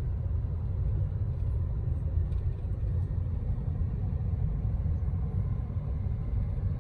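Steady low rumble of a car driving along, with no distinct events.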